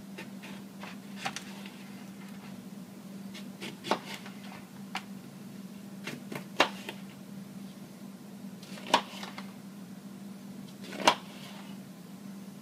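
Kitchen knife cutting through lemons and striking a plastic cutting board: a handful of sharp knocks at uneven intervals.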